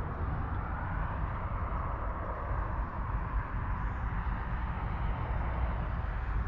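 Claas Arion 660 tractor's 6.8-litre six-cylinder diesel engine running steadily, with an even rushing noise over the engine rumble.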